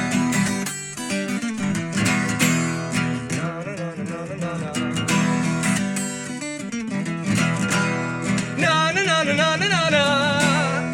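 Acoustic guitar strumming through an instrumental break of a solo song. A wordless sung line with a wavering vibrato comes in about eight seconds in.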